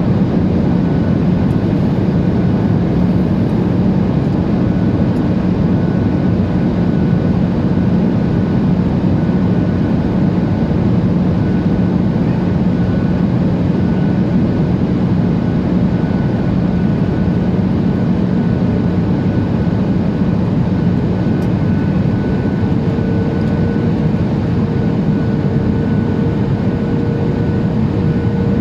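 Steady engine and airflow noise inside the cabin of a Boeing 737-800 in flight, its CFM56-7B turbofans giving a constant low hum. A second, higher steady tone comes in about 23 seconds in.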